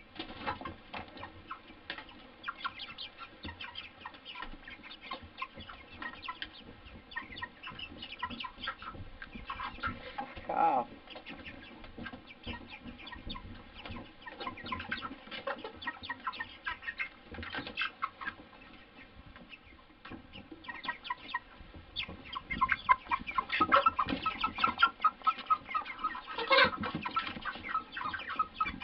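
A flock of white broiler chickens clucking and calling in short notes, growing louder and busier over the last several seconds.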